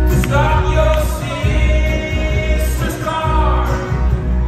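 Live folk-rock band playing on banjo, acoustic guitar, upright bass, cello and drums, with a voice singing two held phrases, one near the start and one about three seconds in.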